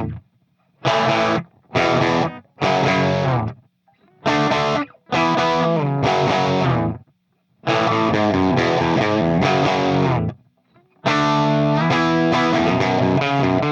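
Distorted electric guitar played through a Power Baby amplifier: short chord stabs with silent gaps between them, then longer runs of chords near the end.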